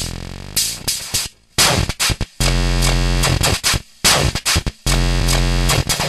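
Circuit-bent Hing-Hon EK-001 toy keyboard making distorted, glitchy electronic tones as its newly added pitch control is worked. The pitch sweeps in the first second, then buzzy tones and noise cut in and out abruptly in short chunks.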